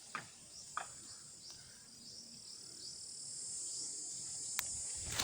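Steady high-pitched chorus of insects in the field, growing a little louder toward the end, with a few faint clicks.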